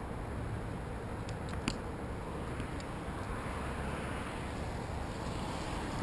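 A steady low rumble and hiss, with one sharp click a little under two seconds in, as a tree climber handles carabiners and rope at his harness.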